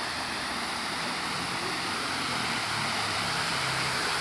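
Water rushing steadily over a small concrete weir in an irrigation channel, growing slightly louder toward the end.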